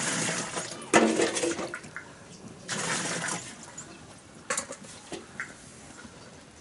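Water with urea dissolved in it pouring from a plastic jug into a large metal basin, in three splashing bursts over the first few seconds. A couple of sharp knocks follow later.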